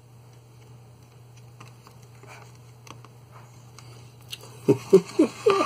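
Faint small clicks and scratches of a hobby knife tip working along the seam of a plastic model hull. Near the end a man hums a few short sliding notes, louder than the knife.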